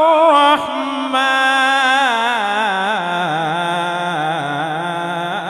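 A male qari's voice in melodic Quran recitation (tilawah), holding one long drawn-out phrase with fast wavering ornaments. The pitch steps down as the phrase goes on.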